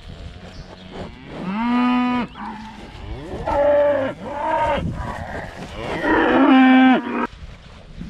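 Dexter cattle mooing: three long moos about two seconds apart, the middle one higher-pitched than the other two.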